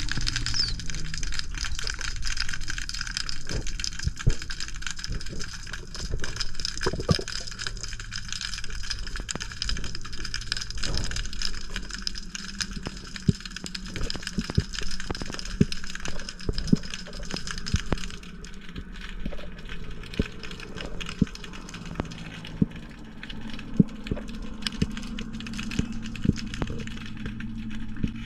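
Underwater ambience picked up through a camera's waterproof housing: a steady hum and hiss with constant crackling clicks and a few louder knocks. A high steady whine drops out about two-thirds of the way through.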